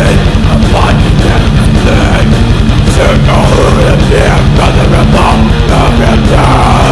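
Death metal from a demo-tape recording: loud, distorted electric guitars over a fast, unbroken drum rhythm.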